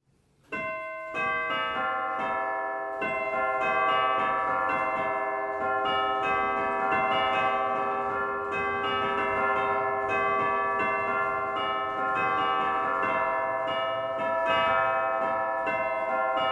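Church bells ringing a continuous peal that starts about half a second in, strikes following one another closely so that each tone rings on under the next.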